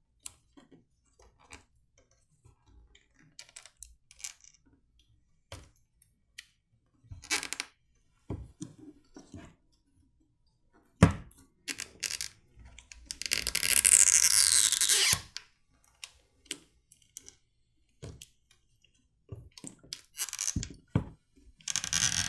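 Battery adhesive pull tabs being drawn out from under an iPhone SE 2020 battery. Small clicks and handling of the phone, a sharp knock about 11 seconds in, then a scratchy stretching, peeling sound for about two seconds with a falling whine as a strip pulls free. A shorter one of the same kind follows near the end.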